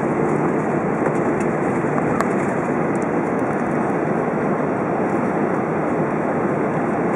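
Steady cabin noise of an Airbus A320 rolling on the ground after landing: engine and wheel noise as the airliner turns off the runway onto the taxiway.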